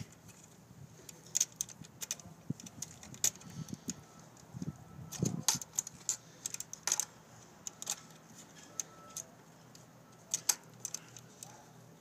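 A spring-loaded rat trap being set by hand: scattered light metallic clicks and clinks, some in quick clusters, with small handling knocks.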